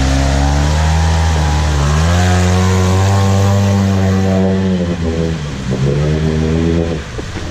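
Side-by-side UTV engine under throttle: its pitch climbs about two seconds in, holds, then drops back as the throttle eases, easing further near the end.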